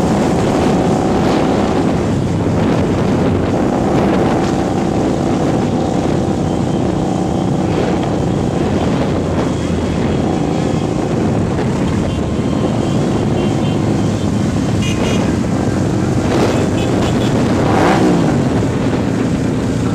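Onboard sound of a Mirage 250 cruiser motorcycle's V-twin engine running at a steady cruising speed, with wind buffeting the microphone and the engines of many other motorcycles riding in the same group around it. Near the end an engine revs briefly up and back down.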